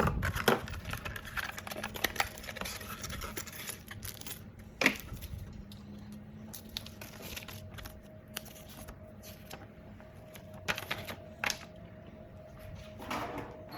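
Handling noises from the smart switch and its packaging: scattered clicks and taps with light rustling, one louder click about five seconds in and a short cluster near the end.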